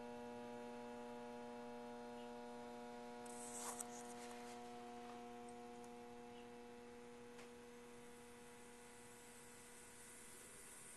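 Faint steady mains hum from a powered-up Zenith 25MC36 tube television chassis, a low buzz with a ladder of higher overtones that eases off slightly. A brief hiss with a couple of light clicks comes about three and a half seconds in.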